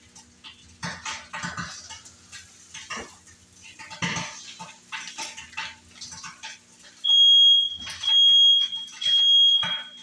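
Light knocks and clatter of kitchen handling, then about seven seconds in a smoke alarm goes off: three loud, high-pitched beeps in a row, each under a second, the standard three-beep alarm pattern. The alarm has been set off by breakfast cooking.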